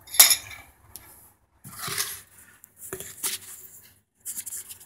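Metal clinks and scrapes from a refrigeration flaring and tube-expanding tool being worked and handled: a sharp clink about a quarter second in, the loudest, then a few shorter scrapes and knocks about two, three and four and a half seconds in.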